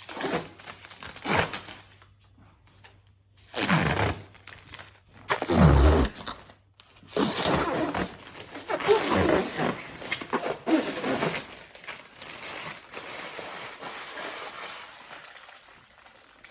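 Adhesive backing paper being peeled and torn off a panel, irregular rustling and ripping in several bursts, with a dull bump about six seconds in, then softer rustling near the end.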